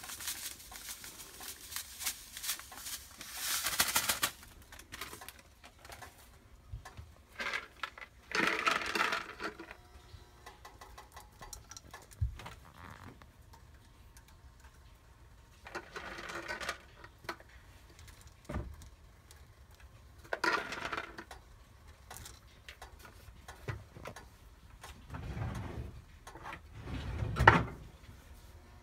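Plastic spice packets crinkling and rustling in several separate bursts, the loudest near the end, with poppy seeds and cashew pieces pattering and clicking into a dry nonstick frying pan of desiccated coconut.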